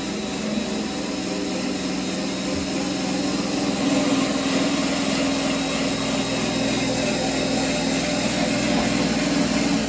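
A motor running steadily with a constant hum, cutting off suddenly near the end.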